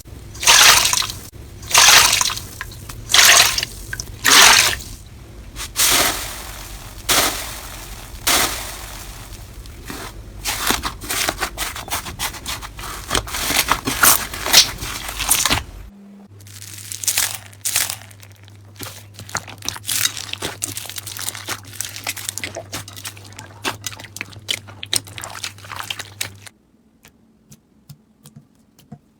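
Slime being squeezed and pressed by hand: wet squelching strokes about once a second, then from about 16 s a dense run of small crackles, as from crunchy slime, which turns much quieter near the end.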